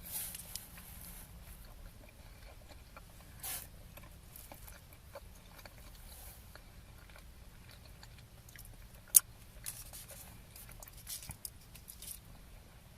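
Faint, scattered crinkles and small clicks from handling a cellophane-wrapped chocolate sweet while it is unwrapped and eaten, with one sharper click about nine seconds in.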